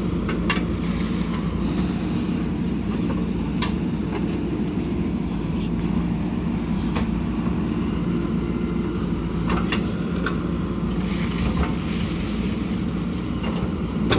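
JCB 3DX backhoe loader's diesel engine running steadily under work, with sharp knocks every few seconds.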